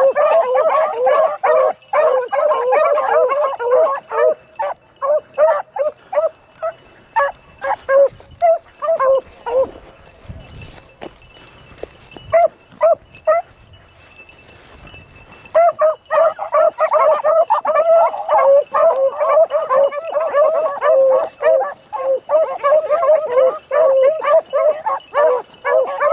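A pack of beagles baying in full cry as they run a rabbit's scent, many voices overlapping. About eight seconds in the cry thins out to a few scattered bays for several seconds, then the whole pack picks up again and bays on steadily.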